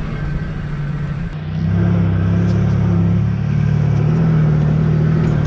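Off-road vehicle's engine running steadily, then getting louder about a second and a half in as it takes more throttle, just after a single sharp click.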